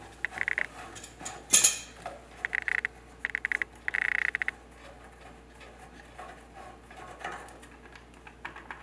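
Rapid metallic clicking in four short bursts, with one sharp click between them, as a hand tool works the reverse-threaded pilot tube fitting loose on a gas water heater burner. A few faint handling sounds follow.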